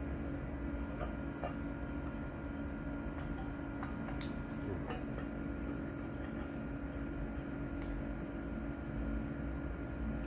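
A steady low mechanical hum with a thin high tone, and a few faint scattered clicks and ticks.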